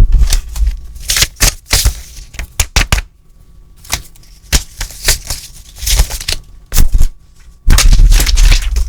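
Beatboxing: a quick, irregular run of sharp percussive mouth sounds (clicks, hissing snare-like bursts and deep kick-like thumps), ending in a longer, louder deep rumble about a second before the end.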